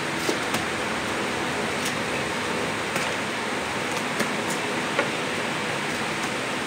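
Irregular sharp knocks of knives chopping chicken on wooden chopping blocks, about seven in all, over a steady hiss.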